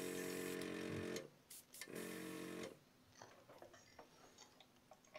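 Airbrush spraying paint: a steady hiss of air with a hum under it, which stops about a second in, comes back for a short spurt around two seconds, and then gives way to faint small clicks as the airbrush is handled.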